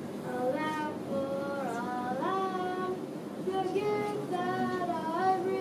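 A child singing a slow melody alone, in long held notes that slide from one pitch to the next.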